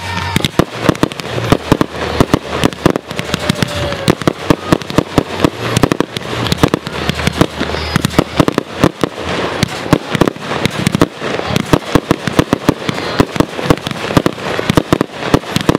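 Aerial fireworks going off: shots launching and bursting in a dense run of sharp bangs and pops, several a second, with no let-up.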